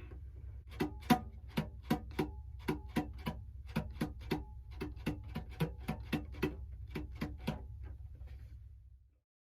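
Cello struck percussively: a run of sharp wooden clicks, about three a second and slightly uneven, each with a brief ring from the body, over a low steady hum. The clicks stop about eight seconds in.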